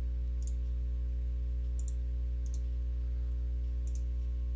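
Four faint computer mouse clicks spread over a few seconds, over a steady low electrical hum on the recording.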